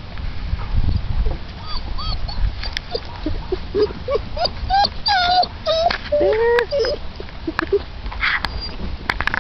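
Nigerian Dwarf goat kids bleating: many short high calls, some overlapping, coming thick from about a second and a half in until near the end.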